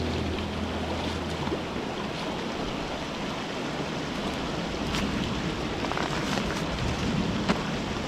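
Shallow rocky creek rushing steadily, with a few sharper splashes and steps as a person in sandals wades across it.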